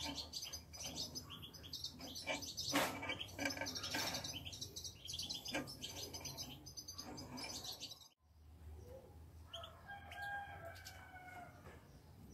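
European goldfinches twittering, many short high chirps, around a wire trap cage, with a couple of sharp clicks from the cage being handled. The sound breaks off about eight seconds in, and a longer, lower call follows.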